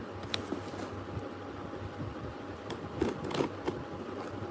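A steady low hum, with a few faint rustles and taps from a delivery package being handled, once just after the start and again around three seconds in.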